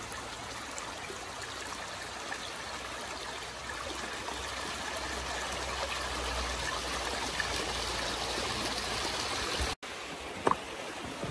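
Shallow mountain river running over rocks: a steady rush of water. The sound drops out for a moment near the end, followed by a sharp knock.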